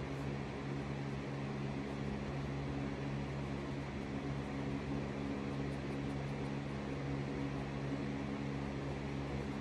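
Steady low machine hum with several held low tones over an even hiss.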